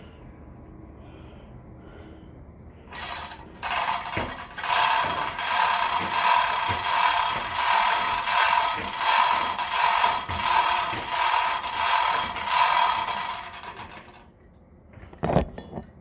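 Machinery running with a loud, rhythmic rattling whir that pulses about one and a half times a second, starting about three seconds in and stopping near the end, followed by a single knock.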